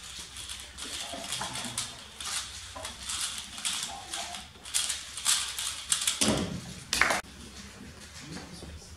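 A 3x3 speed cube being turned fast in the hands: a quick, uneven clatter of plastic clicks. About six seconds in there is a louder knock, then the sound drops off suddenly.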